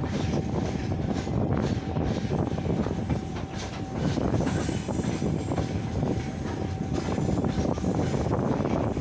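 Freight train rolling past, its wheels clattering continuously with many sharp clicks over the rail joints, and a faint thin wheel squeal that comes and goes.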